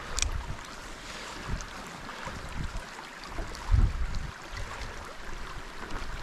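A small creek running high, its current rippling over riffles in a steady rush. Gusts of wind rumble on the microphone, the strongest nearly four seconds in.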